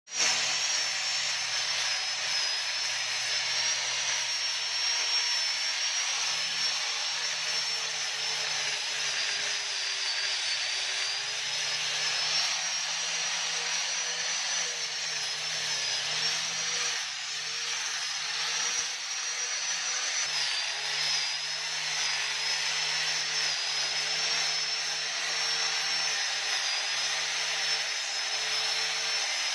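Electric sanding machine running steadily against a surface, giving a constant rasping hiss over a high motor whine whose pitch wavers slightly, with a brief dip about two-thirds of the way through.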